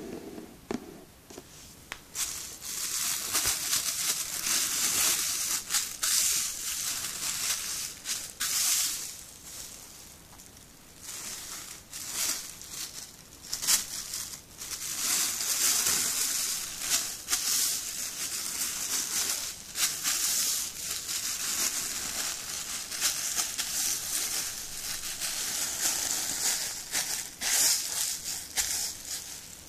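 Thin plastic shopping bag crinkling and rustling as hands smooth it flat and fold it lengthwise into a long strip. The crinkling starts about two seconds in and eases briefly partway through.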